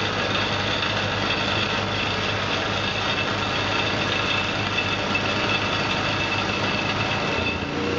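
Two-stage snow blower, its impeller fitted with an aftermarket upgrade kit, running steadily under load while clearing wet snow and throwing it in a high plume. Its note changes slightly near the end.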